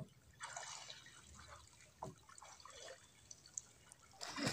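Calm shallow seawater lapping and dripping at a pebble shore, with a few short knocks, the loudest near the end.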